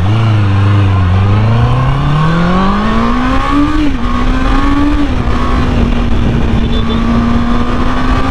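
Honda CB650R's 649 cc inline-four engine accelerating under way, its pitch rising steadily for about three seconds. The pitch eases slightly near four and five seconds, then holds a steady, high pitch, over a constant rush of wind noise.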